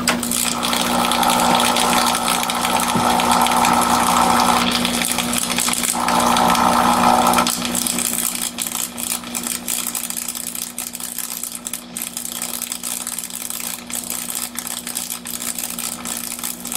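Electrical hum and buzzing from a Dell Optiplex 780's power supply as it fails under abuse. A louder buzz comes in two stretches over the first seven seconds or so, then the sound turns into irregular crackling.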